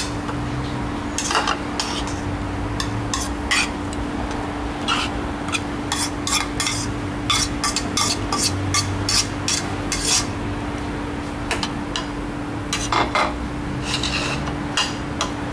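Spoon clinking and scraping against ceramic bowls and a plate in short, irregular clicks as blood cockle salad is scooped out of a mixing bowl onto a serving plate. A steady low hum runs underneath.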